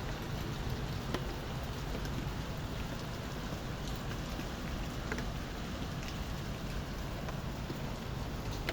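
Steady rain falling, with individual drops ticking now and then over a continuous hiss and a steady low rumble underneath.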